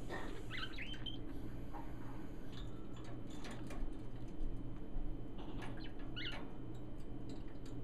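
Caged pet parakeets, a budgie and a lineolated parakeet, giving a few short soft chirps, one near the start and another about six seconds in, among light scattered clicks and taps, over a low steady hum.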